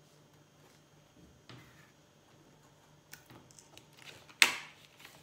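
Handling of a printed paper sheet on a cutting mat: a few light ticks and scratches about three seconds in, then one short, sharp rustle of the sheet near the end that fades within half a second.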